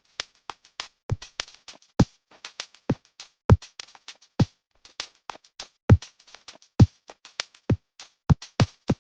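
Background music: a drum-machine beat of punchy, irregularly spaced hits, which cuts off suddenly at the end.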